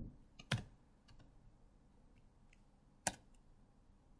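Single key presses on a computer keyboard: two clear clicks about two and a half seconds apart, with a few fainter ticks between them.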